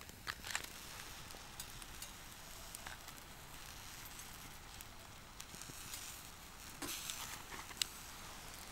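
Steak sizzling on a wire grill over a small wood-burning box stove, with the wood fire crackling. Scattered sharp clicks come from the fork and spatula on the grate as the steak is turned, with a cluster shortly after the start and again near the end.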